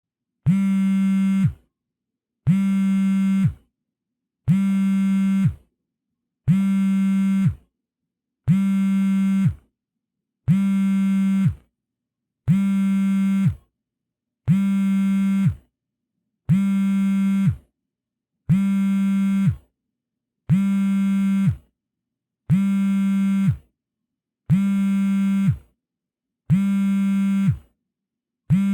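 Smartphone vibrating in silent mode, as for an incoming call. A buzzing hum in steady pulses of just over a second, one every two seconds, about fourteen times.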